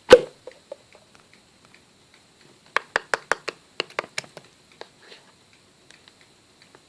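A single loud knock, then about two and a half seconds later a quick run of about ten sharp taps or clicks, with a few faint ticks after.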